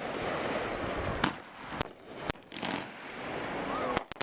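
Aerial fireworks bursting: sharp bangs about a second in and a little after two seconds, then a quick run of several near the end, over a continuous hiss and crackle from the bursting shells.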